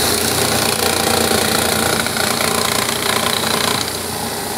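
Cordless drill driving a Schieferdino Plus slate machine, its cutting mandrel (Schneiddorn) nibbling a concave curve out of a roof slate: a loud, continuous, rapid cutting noise that eases slightly near the end.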